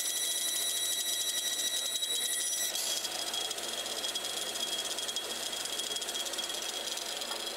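Bandsaw cutting through a thick laminated wood block: a steady high-pitched whine with overtones over the hiss of the cut, its pitch shifting about three seconds in. The blade is running out of alignment.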